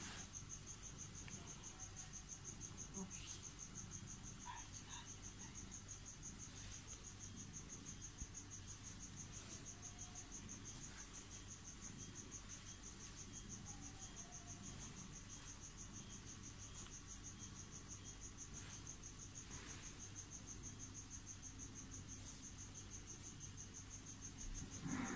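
A cricket's steady, high, pulsing trill, with a few faint taps and rustles.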